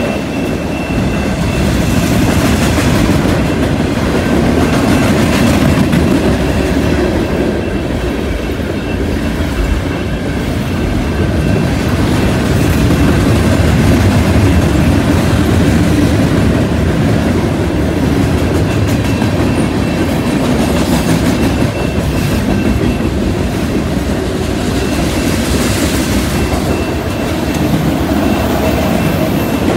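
Freight train of autorack and gondola cars rolling past on straight track: a loud, steady rumble and rattle of steel wheels on the rails. The grade-crossing bell rings a steady high tone over it.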